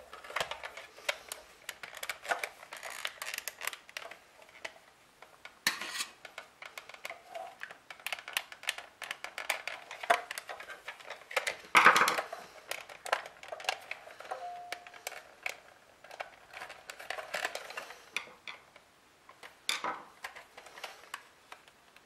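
Hard plastic housing of a Coleco Super Action Controller being handled and worked apart by hand: scattered clicks, knocks and scrapes of plastic parts, with a louder knock about twelve seconds in.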